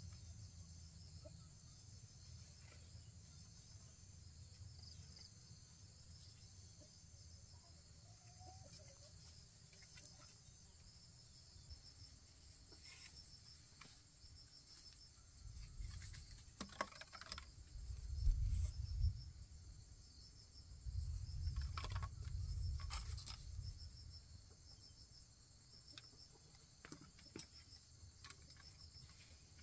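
Insects trilling steadily in a repeating pulse, a high chorus throughout. Around the middle come a few sharp knocks and clicks and some low rumbling.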